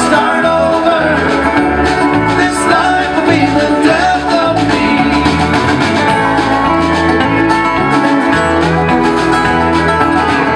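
A live bluegrass band playing, with acoustic guitar, banjo, mandolin and bass guitar over a steady bass line.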